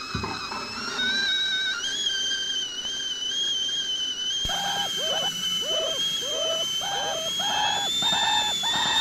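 Experimental musique-concrète soundtrack: a sustained high whistling tone that drifts slowly upward. About halfway through, a run of short, repeated falling chirps joins it, at about two a second.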